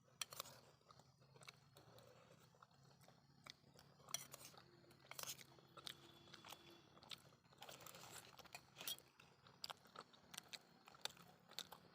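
Faint chewing and biting of food: scattered soft clicks and crunches, over a faint steady low hum.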